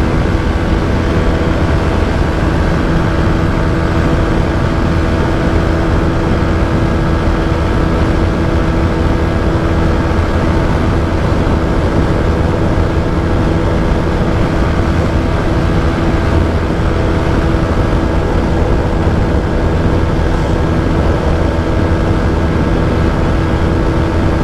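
TVS Apache RTR 160 4V's single-cylinder engine running steadily at high revs in fifth gear, held flat out near its top speed.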